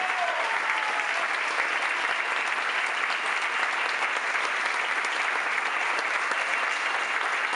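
Audience applauding steadily: a dense patter of many hands clapping at an even level.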